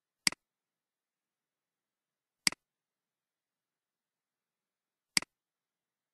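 Three computer mouse clicks, a couple of seconds apart, each a sharp click with a quick second click of the button's release, and silence between them.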